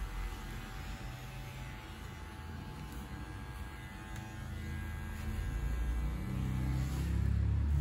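Cordless electric hair clipper buzzing steadily as it cuts a fade into the short hair around the ear, growing louder in the second half.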